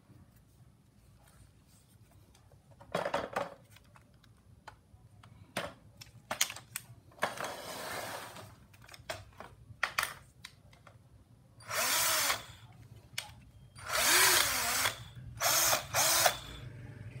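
Cordless drill/driver run unloaded in short trigger pulls, about six bursts, the motor spinning up and winding down each time, with small handling clicks between.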